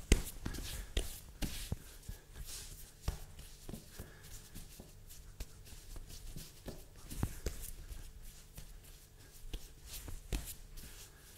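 Hands rolling and shaping rye bread dough on a floured countertop: soft, irregular pats, rubs and light taps of dough and palms against the counter.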